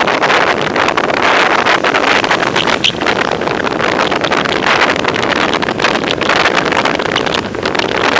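Wind rushing over a bicycle-mounted camera's microphone while riding, a loud, steady noisy rush with constant crackling buffets.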